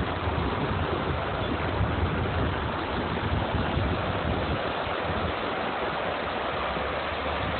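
Torrential rain pouring onto a flooded pavement while floodwater rushes down steps: a steady, dense hiss, with a low rumble underneath through the first half.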